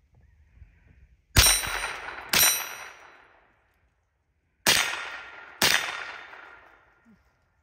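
Four shots from a Remington Nylon 66 semi-automatic .22 LR rifle, in two pairs about a second apart, each sharp crack trailing off over about a second with a ringing tone in the tail.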